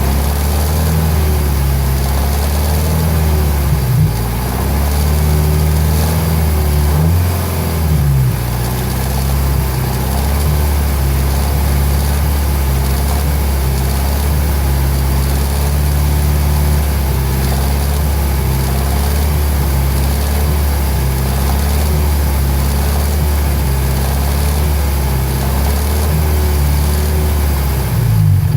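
2016 Nissan Versa's HR16DE 1.6-litre four-cylinder engine idling steadily, heard close up. The owner asks whether its sound is a timing chain rattle.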